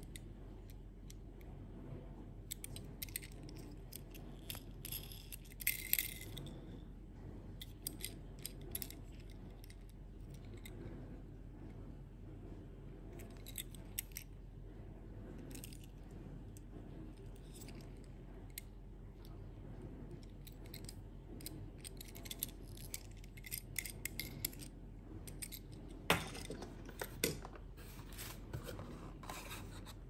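Light clicks, taps and rustles of fingers handling a small die-cast toy vehicle and its moving parts, coming in scattered clusters, with a few louder knocks about six seconds in and again a few seconds before the end.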